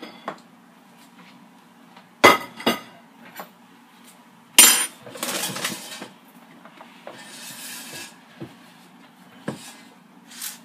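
Clatter and knocks from handling a Power XL air fryer's basket: two sharp knocks about two seconds in and a louder one near the middle, with rustling in between.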